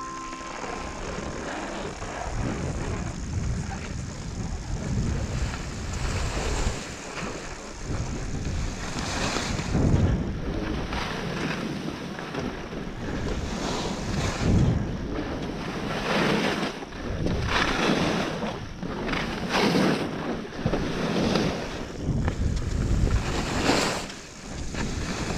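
Skis hissing and scraping over the snow on a downhill run, with wind buffeting the camera's microphone. The noise swells and fades every second or two and grows louder from about ten seconds in.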